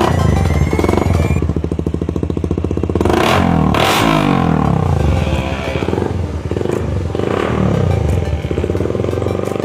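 Suzuki Raider R150 single-cylinder four-stroke engine through an aftermarket power pipe exhaust, revved in sharp blips with the revs falling back after each; the loudest blips come about three to four seconds in.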